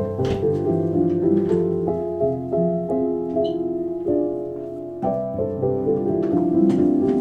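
Piano music, a steady flow of notes that thins out about four seconds in and picks up again a second later.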